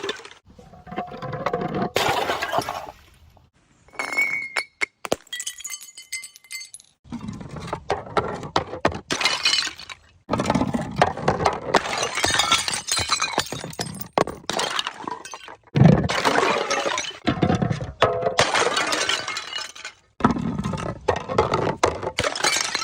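Glass bottles smashing, one after another, each break a run of crashing and crunching shards. Between about 4 and 6 s there is a short stretch of glass clinking and ringing.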